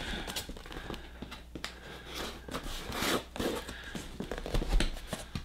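Cardboard shipping box being handled: hands gripping, sliding over and shifting it, giving scattered light taps, scrapes and rustles of cardboard.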